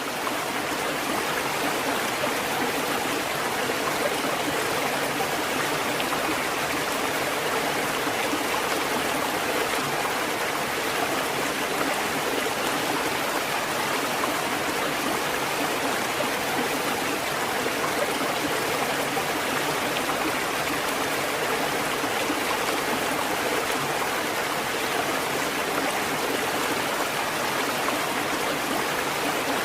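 Water from a fountain running and splashing steadily, an even rushing sound with no breaks.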